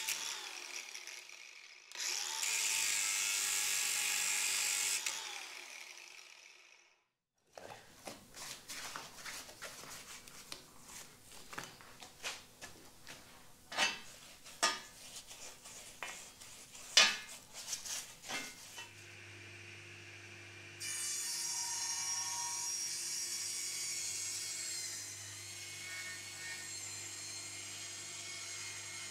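Angle grinder working on a rusty cast iron bench end, then a quieter stretch of scattered taps and knocks as the ends are brushed with paint. From about two-thirds of the way in, a table saw runs steadily and gets louder about two seconds later as timber is fed through it.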